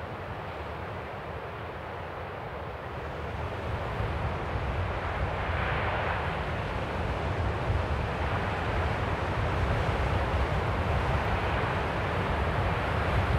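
Strong wind blowing, with a low rumble, growing stronger about four seconds in.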